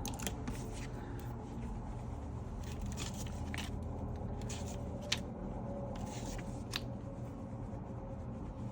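Light handling sounds of paper and a binder: faint rustles and small clicks, one sharper tick about five seconds in, over a steady low background hum.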